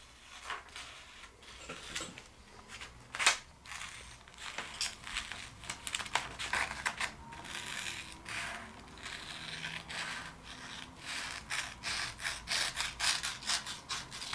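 Scissors cutting a sheet of paper: a run of snips as the blades close, with the crisp rustle of the paper. A few scattered snips at first, one sharp one about three seconds in, then snips come steadily close together for the rest.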